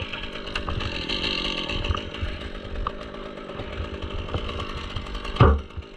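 Chainsaw engine running steadily during tree removal work, with a brief loud sound about five and a half seconds in.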